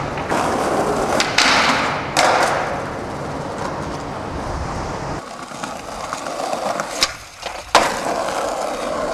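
Skateboard wheels rolling over paving, broken by sharp clacks and scrapes of the board: a few in the first couple of seconds, then two louder clacks near the end.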